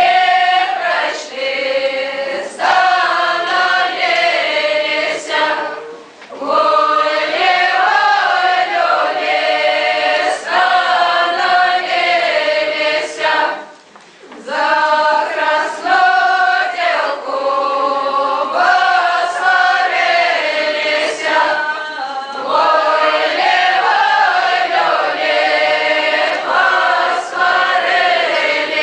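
A group of voices singing a Belarusian spring round-dance (karahod) song in unison, unaccompanied. The song moves in long phrases of several seconds, with brief breaks for breath between them.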